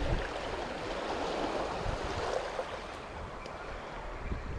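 Small, calm waves washing onto a sandy beach at the water's edge, with a low rumble of wind on the microphone.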